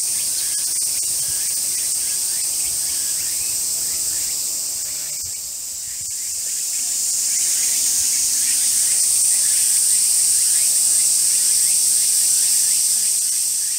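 A loud, steady chorus of cicadas: a continuous high, hissing drone that eases briefly about five seconds in and then swells again.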